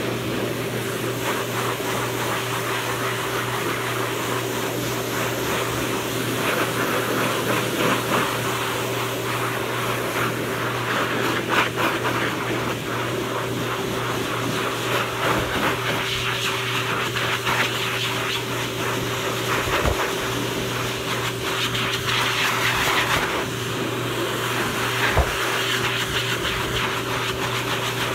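Hose-type dog grooming dryer running steadily, blowing air onto a wet dog's coat: a rush of air over a steady motor hum, the air noise swelling and easing as the nozzle moves.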